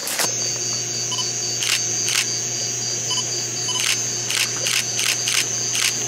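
Camera shutter clicks, many in quick uneven succession, from people photographing a frog, over a steady high-pitched night insect drone.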